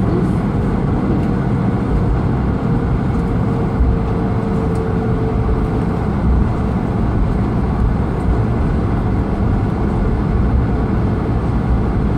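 Steady low rumble of a Swiss Airbus A220-300 heard from inside the passenger cabin, with its Pratt & Whitney PW1500G geared turbofan engines running and a faint steady whine above the rumble.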